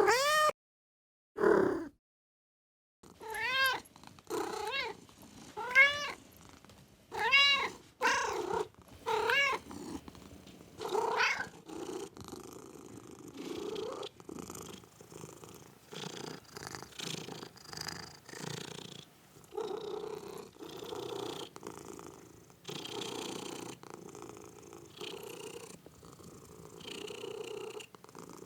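Domestic cat meowing again and again: about ten short meows that rise and fall in pitch, with a brief pause near the start. From about twelve seconds in, the meows give way to a steady pulsing purr.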